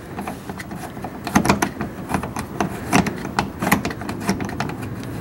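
Push-pin clips being pried and pulled out of a 2013 Mazda3's under-engine splash panel by hand: irregular clicks, snaps and small rattles, several a second.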